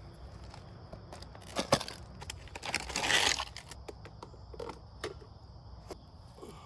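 Scattered clicks and knocks of handling, with a brief crackling rustle about three seconds in.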